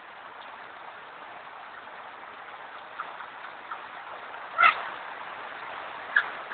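Steady hiss of falling water, with a parrot giving one loud harsh squawk about four and a half seconds in and a few short, fainter calls around it.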